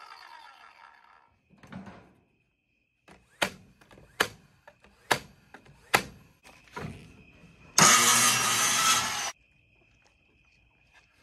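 A circular saw blade winding down with a falling whine in the first second, then a series of sharp wooden knocks as boards are fitted and struck together at the top of an A-frame. Near the end a loud harsh rushing noise lasts about a second and a half and cuts off suddenly. Crickets chirp steadily underneath.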